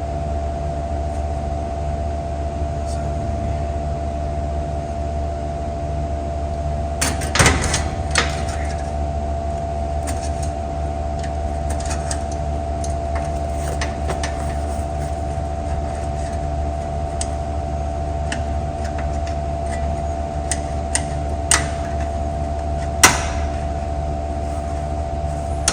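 A steady machine hum runs throughout, with a low drone and a fixed higher tone. Over it come a few scattered sharp clicks and knocks of hand work on metal parts, the loudest about seven seconds in and again near the end.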